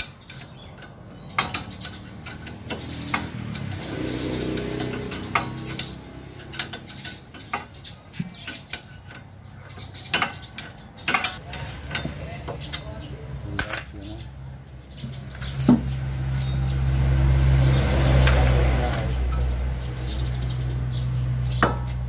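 Metal hand tools clinking and knocking irregularly against steel as the lower strut bolts are worked loose, over a steady low hum that grows louder in the second half.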